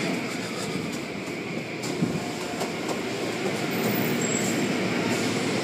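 Automatic car wash machinery running steadily with a continuous mechanical noise, and a single short knock about two seconds in.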